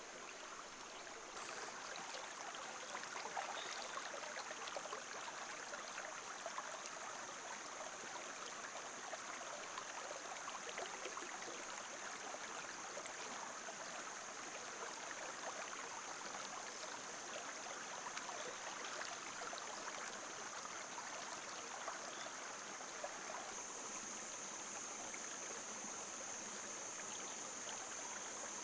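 Shallow rocky stream flowing, a steady rushing trickle, with small scattered splashes and clicks of hands working in the water. A steady high-pitched whine sits on top and grows louder about 24 seconds in.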